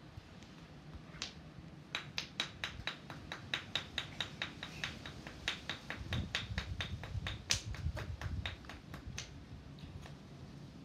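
A small plastic tool tapping and chipping at a yellow toy 'gold' block meant to be broken open for the treasure inside: one tap about a second in, then a run of quick light taps, about four a second, for some seven seconds.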